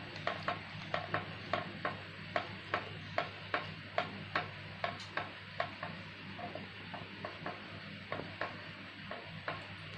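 Silicone spatula stirring cream into a thick gravy in a nonstick pan, knocking against the pan with regular light clicks about two to three times a second, growing fainter after about six seconds. A low steady hum runs underneath.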